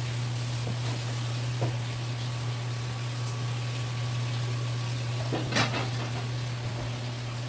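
A steady low hum with a hiss over it, and a few soft handling noises from gloved hands moving wet red sea bream fillets on a cutting board; the clearest comes about five and a half seconds in.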